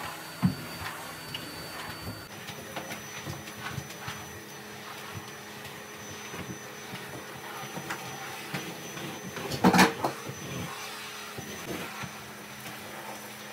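Red canister vacuum cleaner running steadily as its floor nozzle is pushed over a pile rug, a constant motor hum with a thin high whine. There is a sharp knock about half a second in, and a louder brief clatter near ten seconds.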